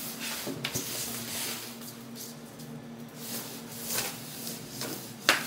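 Hands handling a plastic-wrapped cardboard box: scattered rustles and light knocks, with a sharper knock near the end, over a steady low hum.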